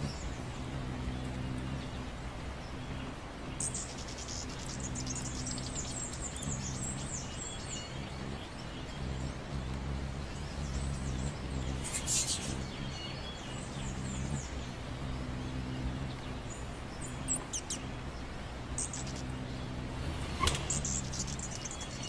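Hummingbirds giving short, high-pitched chirps and twitters in scattered bursts over a steady low hum.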